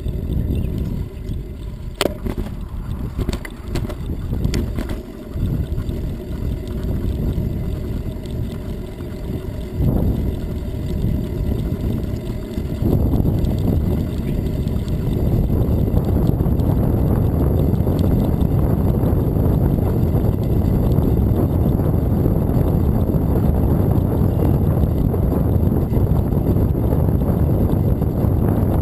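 Wind buffeting the microphone of a camera on a moving bicycle, a steady low rush mixed with tyre noise on pavement. A few sharp clicks come between about two and five seconds in, and the rush grows louder about thirteen seconds in.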